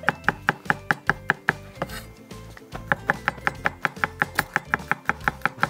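Chef's knife rapidly chopping garlic on a cutting board, an even run of about six quick strokes a second, with a short pause about two seconds in. Background music plays underneath.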